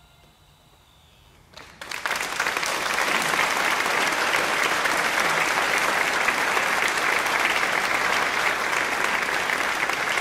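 Applause that starts suddenly about two seconds in, after the faint last notes of music die away, and goes on steadily.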